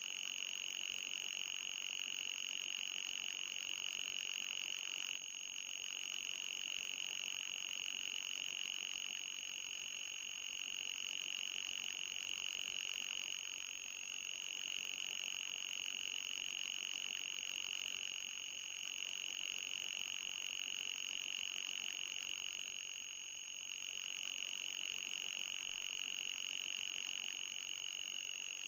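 Electronic mosquito-repellent tone: a steady high-pitched whine with a fainter, higher tone above it, running without a break.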